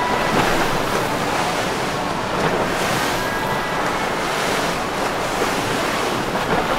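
Steady rush of wind on the microphone over the wash of water.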